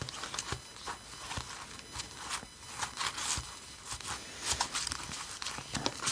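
A stack of printed playing cards being fanned and flipped through by hand, the cards sliding and flicking against each other in quick, irregular snaps and rustles.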